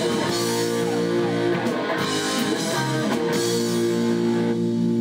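Rock band playing: electric guitar and drum kit with cymbals. Near the end the cymbals fall away, leaving held guitar notes ringing.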